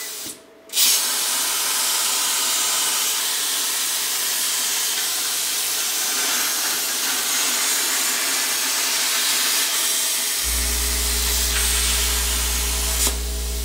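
CNC plasma cutter cutting a plate out of thicker steel sheet. The plasma arc fires about a second in and runs with a steady, loud hiss until it cuts off near the end. A steady low hum joins about ten seconds in.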